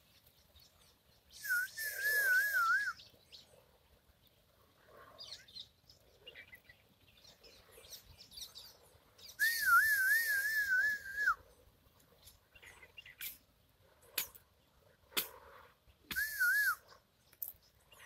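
A person whistling three times a warbling, bird-like call: each a quavering tone over a breathy hiss, the middle one longest and the last one short.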